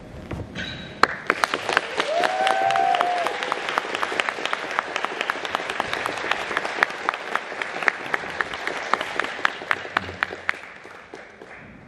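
Concert audience applauding at the end of a song, swelling about a second in, then thinning out to scattered claps and fading near the end.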